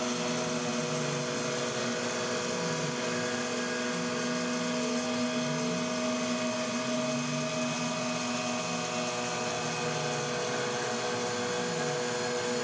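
MR-1 CNC gantry mill with an end mill cutting aluminum under flood coolant in a traditional milling pass: a steady spindle and cutting whine, with a lower tone that slides up and down every couple of seconds as the tool works around the part.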